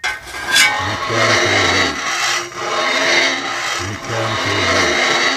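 Metal rubbed and scraped hard against metal in about three long, grinding strokes, with a faint squealing pitch running through the rasp.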